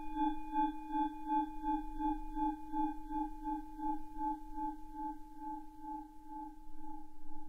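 A single bell-like tone ringing on and slowly fading, with a steady wobble about three times a second.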